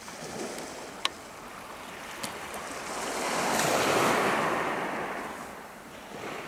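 Small sea wave washing onto a shingle beach, swelling to a peak about halfway through and fading away, over a steady background wash. A short sharp click comes about a second in.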